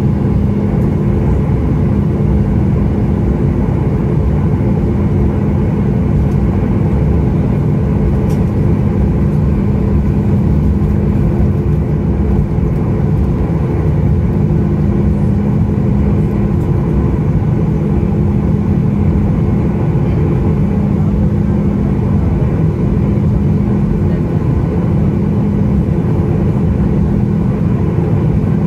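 Steady cabin noise inside a Boeing 737 MAX 8 taxiing, with its CFM LEAP-1B engines running at taxi power. It is a constant rumble with a low steady hum, and the level does not change.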